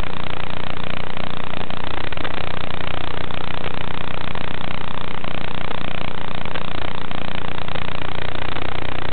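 Steady, loud hiss with a low buzz underneath from an analog FPV video receiver's audio channel, recorded by the goggle DVR. It stays level and does not rise or fall with the quadcopter's throttle.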